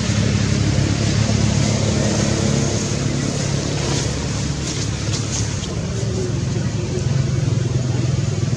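A motor vehicle engine running steadily, a low hum over a constant background noise, with a few faint clicks about four to five seconds in.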